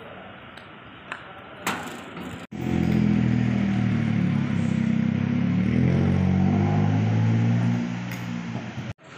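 A motor vehicle engine running close by, a loud steady hum that starts abruptly about two and a half seconds in and stops abruptly near the end. Before it there is only faint outdoor background with a couple of light clicks.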